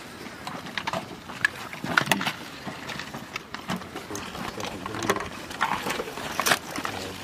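Scattered clicks, knocks and rattles of gear being handled, among them a linked machine-gun ammunition belt, with a few sharper knocks about two, five and six and a half seconds in.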